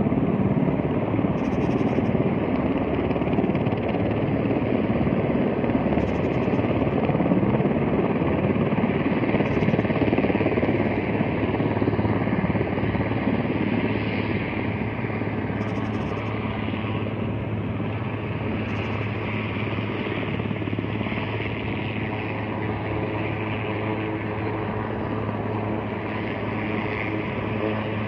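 A helicopter's rotor and engine drone, steady and continuous, getting a little quieter about halfway through.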